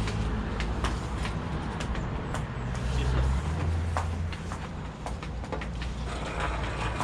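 Street traffic: a vehicle engine running nearby with a low hum that swells for a couple of seconds around the middle, with scattered knocks and clatter.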